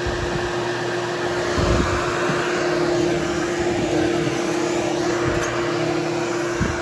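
Hoover Hushtone vacuum cleaner running steadily over carpet, a constant motor hum with one held tone, with a couple of brief low bumps.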